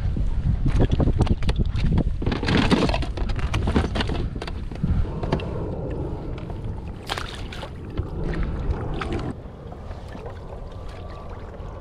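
Wind noise on an action camera's microphone, with water sloshing against a kayak and scattered clicks and knocks from handling. The noise drops off sharply about nine seconds in, leaving a quieter steady wash.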